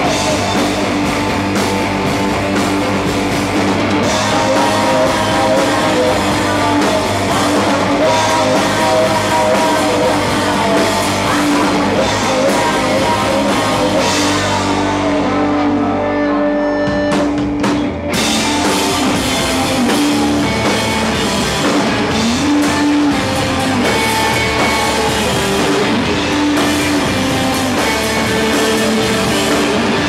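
Live rock band playing: a woman singing into a microphone over electric guitar and drum kit. A few seconds past the middle the cymbals and high end drop away briefly, then the full band comes back in.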